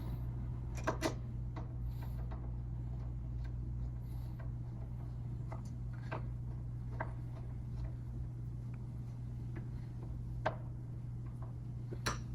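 Scattered light clicks and taps of a hand screwdriver turning the screws of a door lockset's plate, over a steady low hum.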